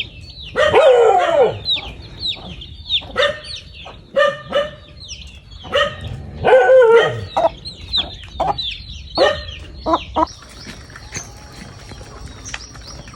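Birds calling in a rapid run of short, downward-sliding calls, loudest about a second in and again around seven seconds. After about ten seconds the calls thin out and a steady high whine sets in.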